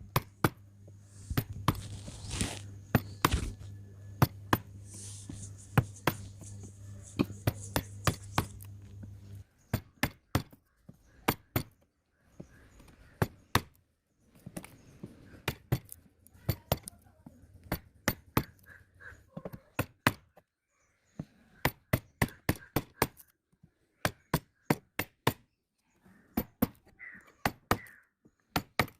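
Wood chisel being struck again and again, chipping waste out of a 45° corner joint: runs of sharp knocks, several a second, with short pauses between. A steady low hum underneath stops about a third of the way through.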